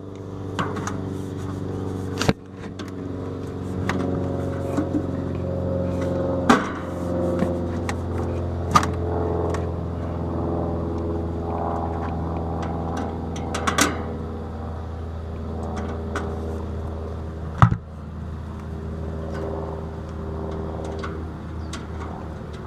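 Central air conditioner condensing unit running after its power is restored, a steady mechanical hum from the compressor and condenser fan that builds over the first couple of seconds. A few sharp clicks and knocks from handling the unit are heard over it.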